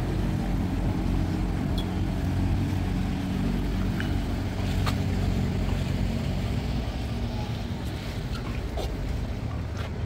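Motorboat engine running steadily at low revs as the boat moves away through the lock, its hum slowly fading.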